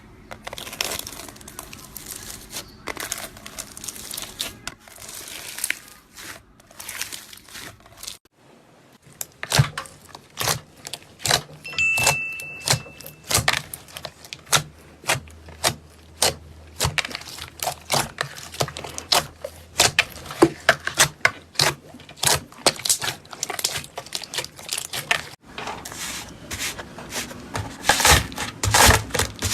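Slime being squeezed and stretched by hand, giving a long run of sharp clicky pops and crackles. The sound changes abruptly twice, about a third of the way in and near the end.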